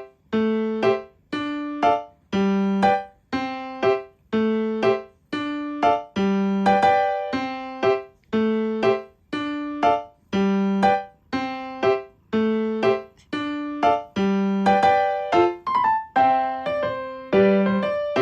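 Background music: a bouncy piano tune of short, detached chords and notes, about two a second.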